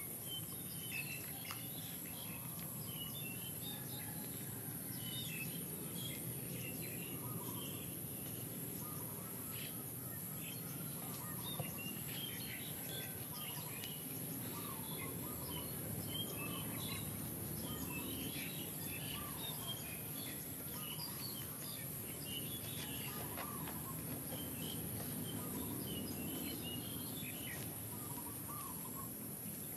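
Rural outdoor ambience: small birds chirping on and off, over a steady high-pitched insect buzz.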